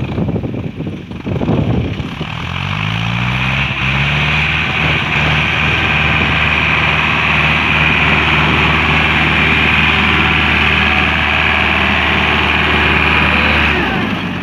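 Diesel tractor engine working under load as it pulls a disc harrow through the soil, passing close by. Its note rises over a couple of seconds and then holds steady, easing off a little near the end.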